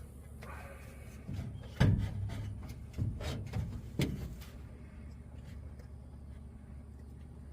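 A handful of sharp clunks and knocks, about four of them between two and four seconds in, from hose connections and parts being worked loose during a carbon canister removal.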